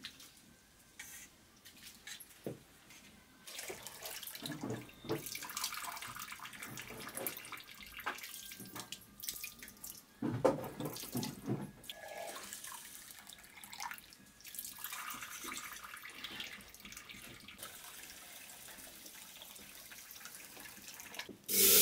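Rice being washed by hand in a metal bowl: water sloshing and swishing, with water pouring into the pot and a louder burst of splashing near the end.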